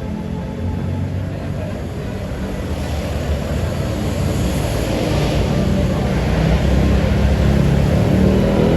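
Heavy road-vehicle engine rumble, a tour bus on the move, growing gradually louder as it comes closer, with a hiss of air and tyre noise passing about halfway through.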